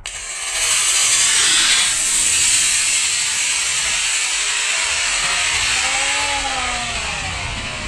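A D-class model rocket motor ignites and burns with a loud rushing hiss that starts suddenly, then slowly fades as the rocket climbs away.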